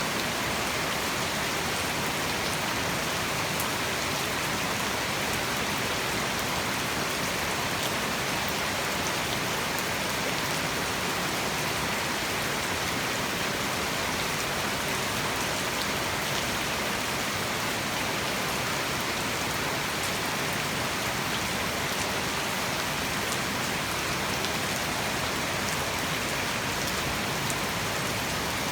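Heavy tropical rain falling steadily, a dense even hiss of drops hitting surfaces with scattered sharper drop ticks.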